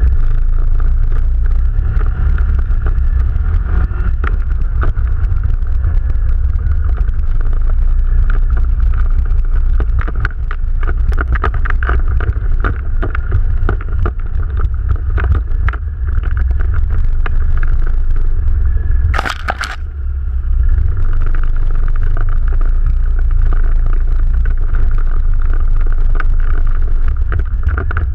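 ATV engine running while riding off-road, with constant crunching and clattering from the machine going over rough ground. A brief loud rushing burst comes about nineteen seconds in.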